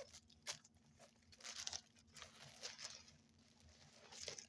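Faint rustling and crinkling of a plastic package being handled and opened, in short bursts with a sharp tick about half a second in.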